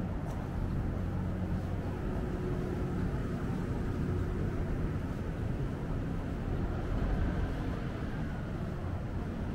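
Steady low rumble of city street background noise, most likely traffic, with a faint steady hum in the middle.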